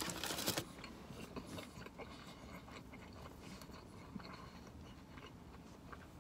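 A person chewing a mouthful of curly fries close to the microphone: crunchy chewing for the first half-second, then quieter chewing with faint wet mouth clicks.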